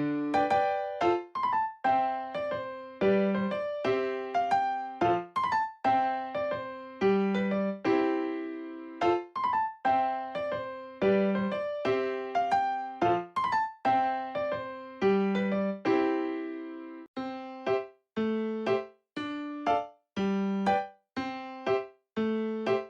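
Background music: a light keyboard melody of short, quickly fading piano-like notes in a phrase that repeats about every four seconds, with brief gaps between phrases.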